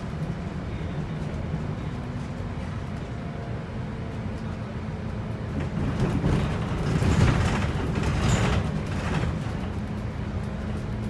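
Volvo 8900LE city bus on a B7RLE chassis heard from inside the passenger cabin while driving: a steady low diesel engine drone, with a louder rush of noise swelling from about six seconds in and easing off near nine.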